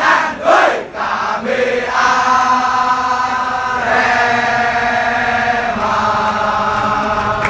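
A large crowd of football supporters chanting together in unison, singing long held notes that change pitch every second or two.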